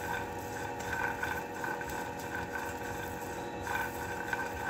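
Roasting peanuts, cumin seeds and garlic cloves being stirred in a dry nonstick frying pan with a silicone spatula, with soft repeated stirring strokes over a steady background hum.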